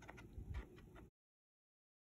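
Scissors snipping through painted card: a few faint snips, then the sound cuts out to dead silence about a second in.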